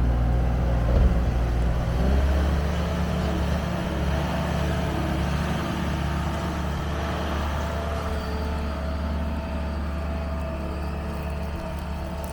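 New Holland L220 skid steer's diesel engine running steadily, with a single clunk about a second in and a change in the engine note about two seconds in.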